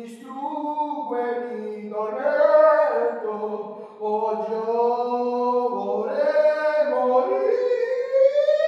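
Slow, wordless singing in held notes, with more than one pitch sounding at once like voices in harmony. Near the end one line slides up in a long smooth rising glide.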